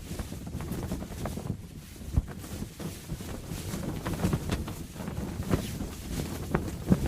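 A canvas sail flapping and snapping in strong wind, with irregular sharp cracks over a steady low wind rumble; the strongest snaps come about two seconds in and near the end.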